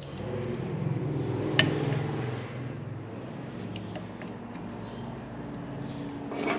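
Brake pads being fitted back into a rear disc brake caliper: a sharp metallic click about a second and a half in and a few faint ticks later, over a steady low hum.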